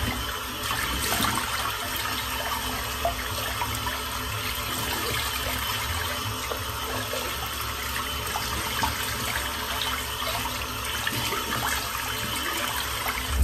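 Bathroom tap running steadily into a sink while shaving lather is rinsed off a face.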